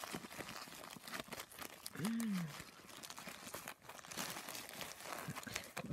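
Plastic mailing envelope crinkling and rustling as a hand rummages inside it, with fine crackles throughout. A short rising-and-falling vocal sound comes about two seconds in.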